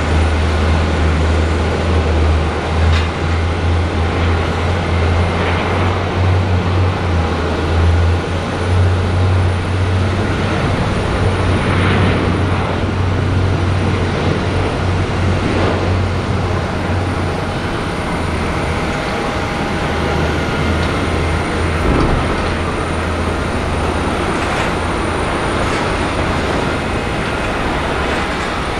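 Jet engines of a Boeing 737-800 (CFM56 turbofans) running on the airfield: a loud, steady roar with a heavy low rumble that eases after about sixteen seconds.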